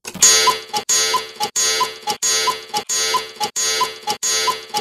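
Cuckoo clock sound effect repeating in a fast, even loop, about one and a half times a second: each repeat is a short mechanical clatter followed by two quick notes, the second a little lower.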